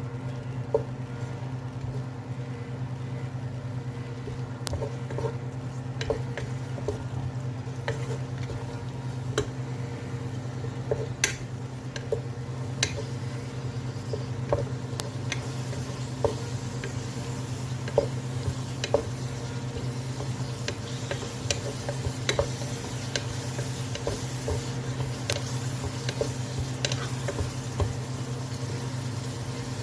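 A utensil stirring vegetables in a pan, with irregular clicks and knocks against the pan and a faint sizzle that grows in the second half, over a steady low hum.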